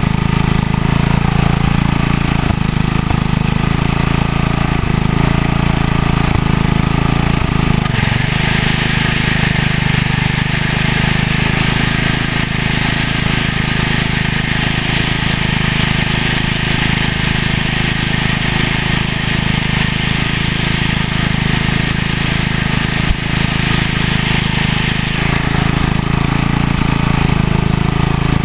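The 3.75 horsepower Briggs & Stratton Sprint 2 single-cylinder engine of a DR trimmer mower running steadily, shortly after a cold start. From about eight seconds in until a few seconds before the end, the sound turns rougher with an added high hiss.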